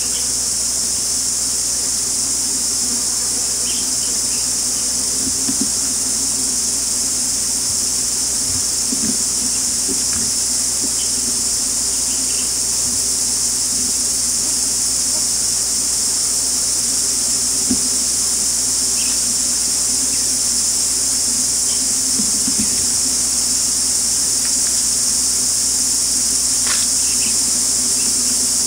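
Dense, steady high-pitched insect chorus, with a low steady hum underneath.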